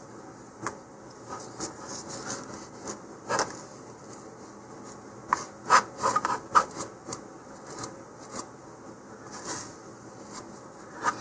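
Wooden applicator stick scraping and tapping as wood filler paste is scooped from a plastic tub and spread along a wooden fin joint. Irregular scrapes and clicks, with a cluster of louder knocks about five to seven seconds in.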